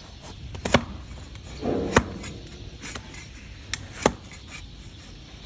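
Donkey hoof horn being pared with a broad flat farrier's paring blade: about four sharp cracks as slices of horn break away, with a short scrape of the blade just before the second.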